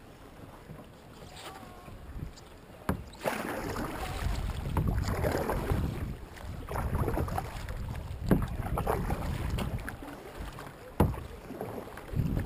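Kayak paddle strokes: the blade dipping and pulling through the water with splashing, in uneven surges, with some wind on the microphone. A sharp knock about three seconds in, after which the strokes get louder.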